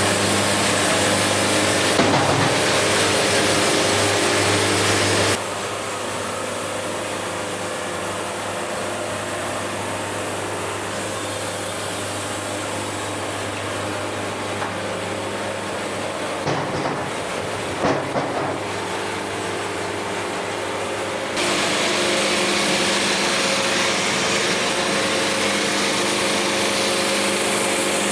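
Portable band sawmill running, its engine humming steadily while the band saws through a log. The sound drops abruptly about five seconds in and comes back up about twenty-one seconds in, with a few short knocks along the way.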